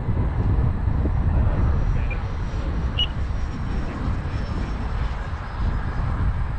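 Wind buffeting the microphone in a low, fluttering rumble, with the faint high whine of a distant Freewing F-16 70mm electric ducted-fan RC jet in flight.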